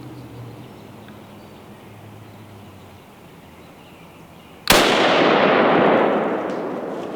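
A single hunting rifle shot about four and a half seconds in, its report rolling away in a long echo that fades over the next two seconds and more.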